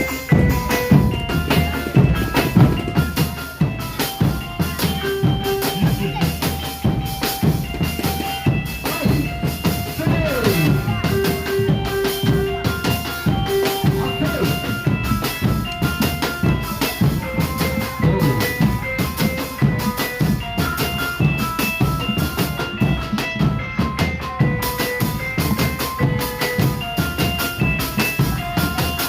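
Background music with a steady drum-kit beat and held melody notes.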